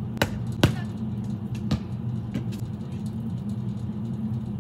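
A basketball knocks against the backboard and rim and then bounces on the concrete driveway. There are four sharp knocks in the first two and a half seconds, the second the loudest and the last the faintest, over a steady low hum.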